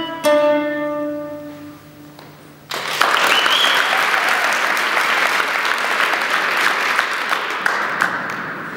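Acoustic guitar plucking a last few notes that ring out and fade, then, about three seconds in, audience applause breaks out suddenly, with a short rising whistle near its start, and carries on steadily.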